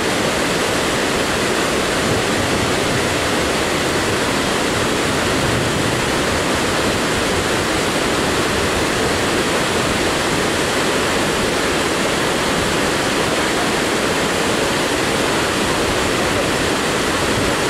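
Steady rush of a boulder-strewn mountain torrent, whitewater tumbling over rocks, loud and unbroken.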